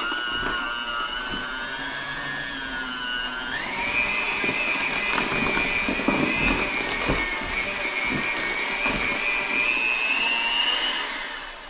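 Black+Decker electric hand mixer running, beating peanut butter and confectioner's sugar in a glass measuring cup. The motor whine steps up in pitch about a third of the way in as the speed is raised, with the beaters knocking against the glass, and it winds down near the end.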